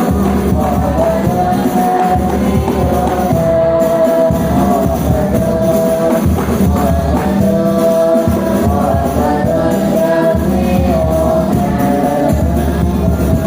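A child's voice singing a sholawat, an Islamic devotional song in praise of the Prophet, in long held melodic notes, over steady frame-drum (rebana) percussion.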